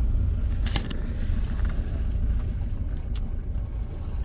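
Car running, heard from inside the cabin as a steady low rumble, with a sharp knock about a second in and two quick clicks near the end.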